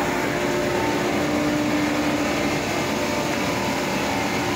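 Steady running drone of chillers and circulating water pumps in a mechanical room, an even rush of noise with a few constant hum tones. The chillers are back on and working normally.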